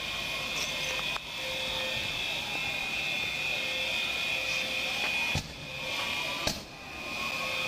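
Several steady, high-pitched alarm tones sounding together in the street after a bomb blast, with two sharp knocks against the body camera near the end.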